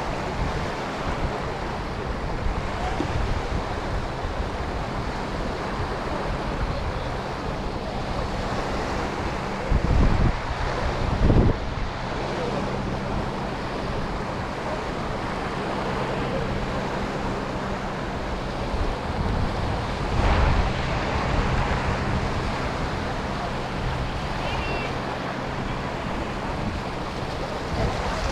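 Sea waves washing onto a sandy beach, with wind buffeting the microphone in gusts about ten, eleven and a half and twenty seconds in, and faint voices of people around.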